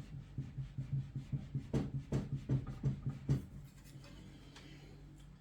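Rubber feet of a Lian-Li A4H2O small-form-factor PC case rubbed back and forth on a tabletop, about three scraping strokes a second, stopping about three and a half seconds in. This is a test of whether the feet leave marks on the table.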